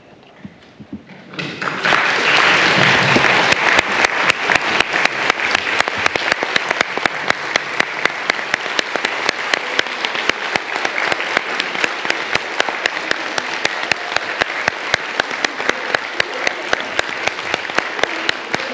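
Audience applauding. It starts suddenly about a second and a half in and carries on as dense, steady clapping.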